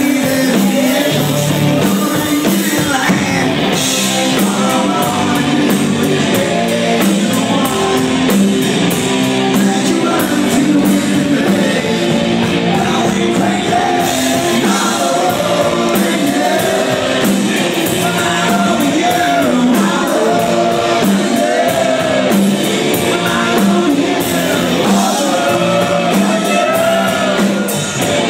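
Rock music with a singer, played loud and continuously by a band.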